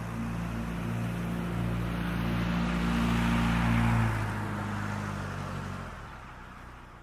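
A motor vehicle passing: a steady engine hum and tyre noise that grow louder to a peak about four seconds in, then fade away.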